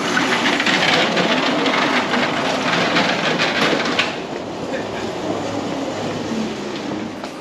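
Razor XL Crazy Cart with a 1000 W motor upgrade driving, its small wheels rumbling and rattling over coarse asphalt. The rattle eases about four seconds in as the cart rolls onto the smooth concrete floor of the garage.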